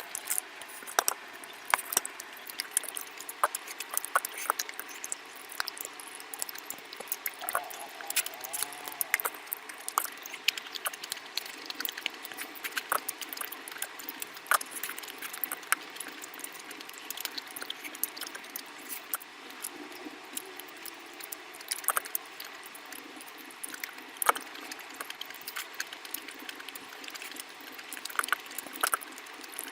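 Close-miked wet eating sounds of curry: irregular squelching, with many sharp wet smacks and clicks.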